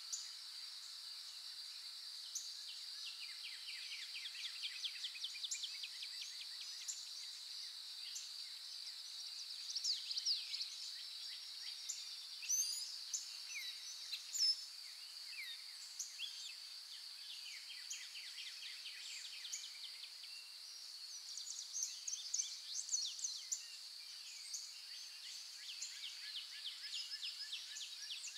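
Outdoor nature ambience: many birds chirping and singing in quick trills of repeated notes over a steady high-pitched insect drone.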